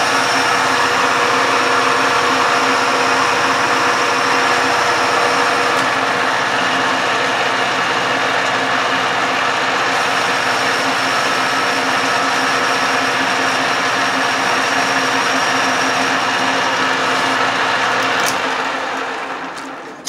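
Metal lathe running under a cut, its motor and gears whining steadily while the carriage feeds the cutter along. Near the end the sound dies away as the lathe spins down.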